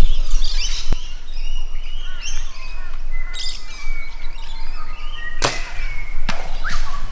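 Bush birds chirping and calling, with a sharp crack about five and a half seconds in and a softer one a little under a second later; the first is a compound bow being shot.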